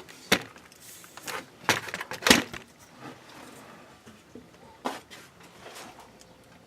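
About half a dozen separate light knocks and clicks from small hard objects being handled, loudest in the first two and a half seconds.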